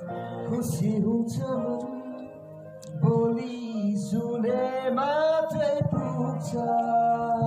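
Music: a slow Nepali song sung in long held, wavering notes.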